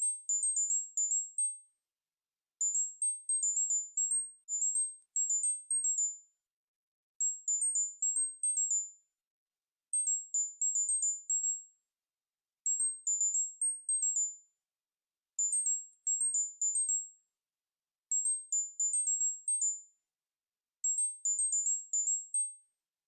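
Electronic tinnitus-relief tone sequence: short, very high-pitched beeps in quick runs of about half a dozen, stepping between a few nearby pitches. The runs repeat about every two and a half seconds with brief silences between.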